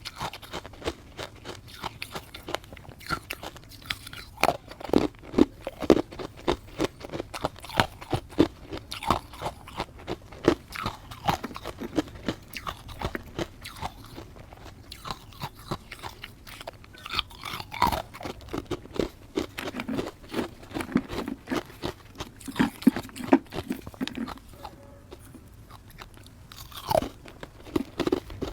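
Close-up crunching and chewing of matcha-powdered ice, many crisp crackles in irregular clusters of bites and chews.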